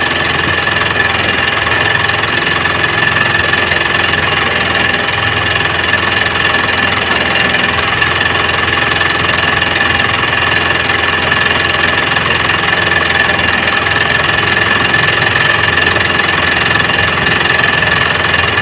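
A small engine running steadily at an even idle, its speed unchanged throughout.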